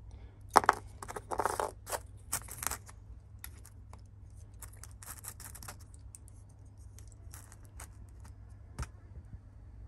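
Clicks, taps and short scrapes of small hard parts and tools being handled, loudest about half a second in and again around two and a half seconds in, over a steady low hum.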